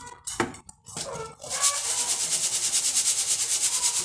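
Fine sand being sifted through a round wire-mesh sieve, shaken rapidly back and forth so the grains hiss and rattle on the mesh in a quick even rhythm, starting about a second and a half in. A few short knocks come before it.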